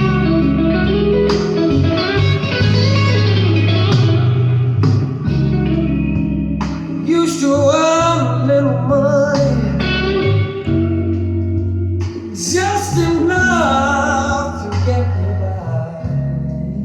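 Music with guitar and a singing voice over a steady bass line; the voice comes in twice.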